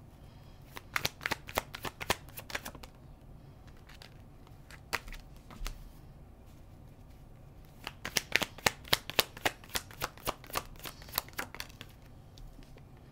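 A deck of tarot cards being shuffled by hand: a quick run of card snaps in the first few seconds, a couple of single snaps, then a longer run of rapid snaps from about eight to twelve seconds in.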